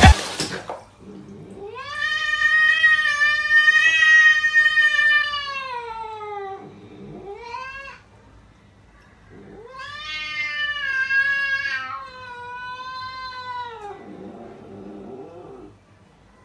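Domestic cat yowling: two long drawn-out wailing calls that rise and then slide down in pitch, with a short call between them and a fainter one near the end.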